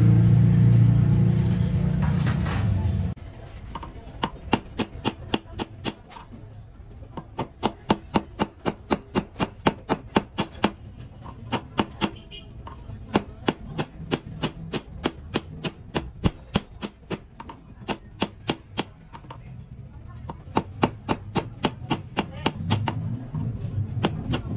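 Goldsmith's small hammer tapping on metal while working a gold ring by hand: quick light strikes, about four a second, in runs broken by short pauses. A loud steady motor-like drone cuts off about three seconds in, before the tapping starts.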